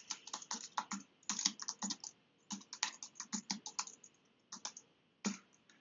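Fast typing on a computer keyboard: quick runs of keystrokes with short pauses between them, trailing off near the end with a last key press.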